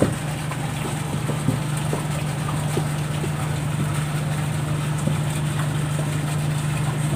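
Steady low drone of an idling engine, unchanging throughout, with a few faint light clicks over it.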